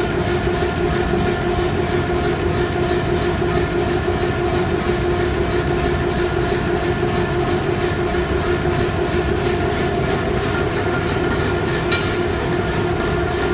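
Blacksmith's forge running with a steady roar and a steady low hum, while steel heats in the fire for a borax forge weld.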